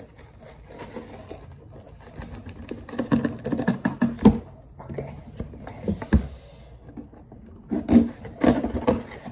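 A knife scraping and sawing through packing tape and the cardboard of a shipping box, in quick irregular strokes with handling knocks, loudest around the middle and near the end.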